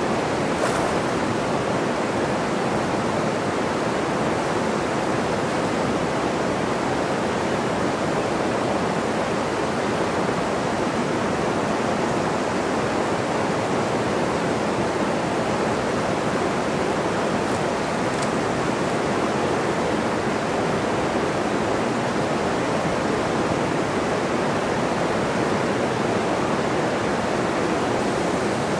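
A fast, high-gradient river rushing through whitewater rapids over rocks: a steady, unbroken rush of water.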